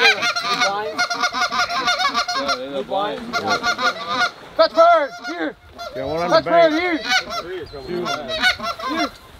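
Canada goose honks and clucks in a fast, dense stream of short calls, with a brief pause about halfway through.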